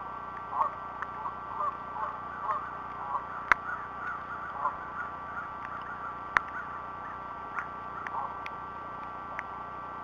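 Waterfowl calling in short, irregular notes, over a steady high hum. Two sharp clicks come about a third and two-thirds of the way through.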